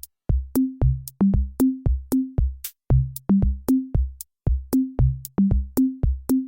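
Background music: an electronic drum-machine beat of pitched drum hits, about three a second, in runs that step down in pitch.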